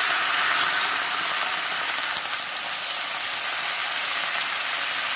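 Soy-based teriyaki sauce sizzling and bubbling in a hot nonstick frying pan, just poured in after the chicken was browned. The steady sizzle eases slightly after a second or two.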